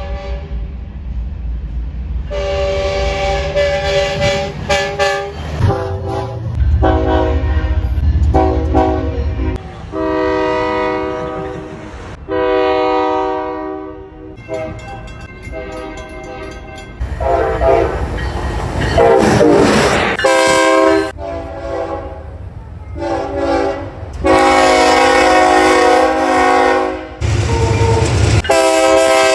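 A run of locomotive air-horn blasts, short toots and longer held chords of several notes, from different horns cut one after another. Some blasts sound over the low rumble of a passing train.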